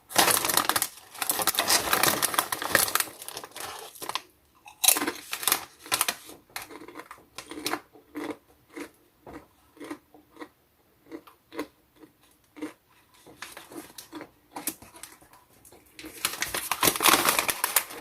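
Close-up crunching of a popped-corn chip being bitten and chewed, a run of short crisp crunches about three a second that thin out midway, with denser stretches of crunching and crinkling at the start and near the end.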